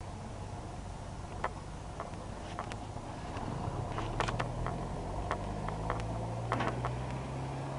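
A low, steady engine hum that grows a little louder about three seconds in, with a dozen light clicks and taps scattered over a faint hiss.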